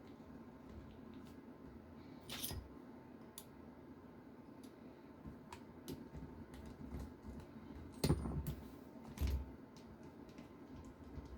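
Small plastic and metal parts of a radio-controlled car being handled during disassembly: faint scattered clicks and taps, a short rattle about two seconds in, and two louder knocks, about eight and nine seconds in, as parts are set down on the bench.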